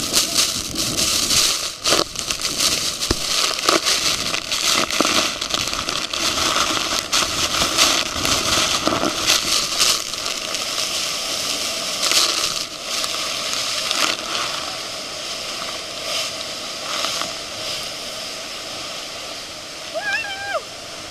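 Waterfall spray and falling water drenching the camera from an open boat beneath the falls: a dense, loud hiss with many crackling hits of water striking the microphone, easing off in the second half.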